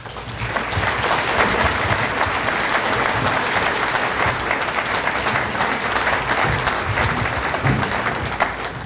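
Audience applauding, a steady patter of many hands clapping that swells up at once, holds, and dies away near the end.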